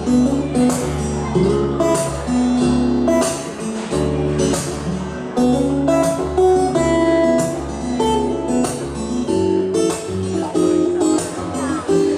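Solo steel-string acoustic guitar played fingerstyle: a melody over deep bass notes, with a steady beat of sharp attacks about twice a second.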